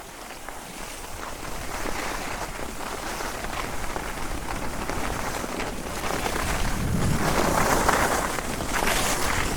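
Alpine skis sliding and carving on packed snow on a downhill run: a continuous scraping hiss that grows louder, most of all from about two thirds of the way in, with wind on the microphones.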